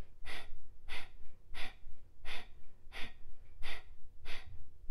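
A woman doing breath of fire, a yogic breathing exercise: a steady run of seven short, forceful exhales, about one and a half a second, each pushed out by pulling the belly in, with easy passive inhales between.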